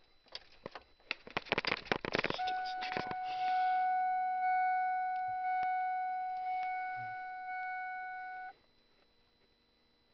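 A jingle of keys and rattling clicks, then a car's electronic warning chime: one steady tone, re-struck about once a second for some six seconds, then cutting off sharply.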